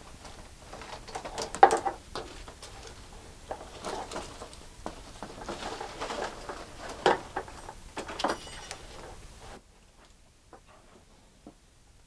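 Irregular rustling, snapping and clicking as sweet potato vines and plastic drip tubing are pulled loose and clipped by hand, with a sharp click about one and a half seconds in as the loudest moment. The sound drops to quiet about nine and a half seconds in, leaving only a few faint clicks.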